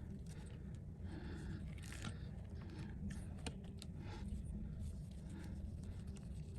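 Light scraping and clicking of small hand tools working on a phone display, over a steady low hum.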